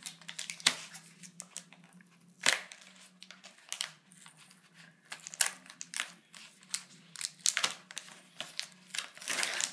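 Plastic wrapping of a packaged pizza crinkling and tearing as hands peel it open, in irregular sharp crackles with a few louder rips.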